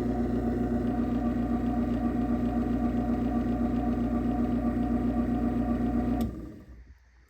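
Craftsman half-horsepower garage door opener motor running steadily as it opens the door, a loud even hum. It cuts off about six seconds in.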